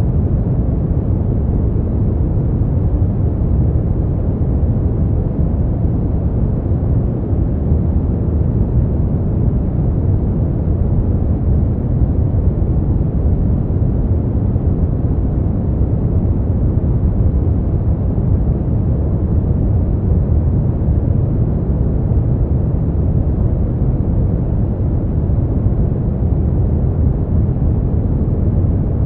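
Smoothed brown noise: a steady, deep rumbling hiss with most of its weight in the low end and little above a few thousand hertz, unchanging throughout.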